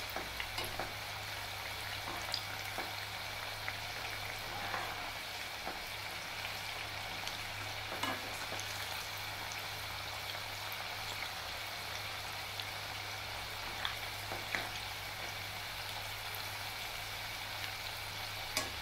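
Battered pumpkin fritters deep-frying in hot oil in a kadhai: a steady sizzle, with a few faint clicks now and then.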